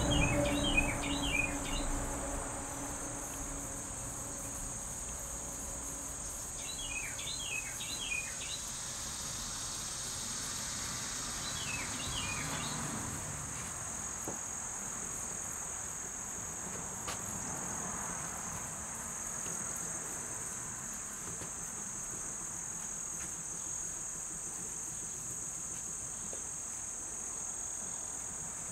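Steady high-pitched insect chorus, like crickets, running without a break. A bird chirps three quick phrases over it in the first half.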